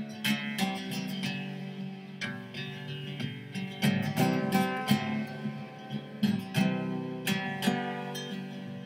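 Background music played on acoustic guitar: a run of plucked notes and chords, each starting sharply and ringing on.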